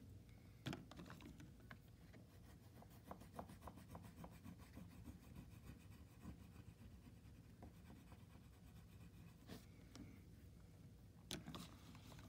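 Faint scratching of an oil pastel stick worked across paper in short strokes, with a few sharper ticks near the start and near the end.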